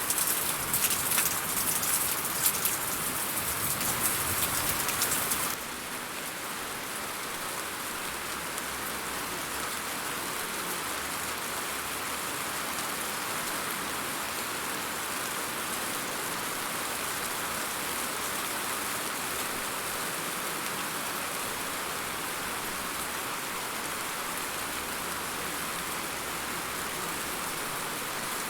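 Steady rain falling, with many sharp drop hits for about the first five seconds. Then it changes abruptly to a softer, even rain hiss.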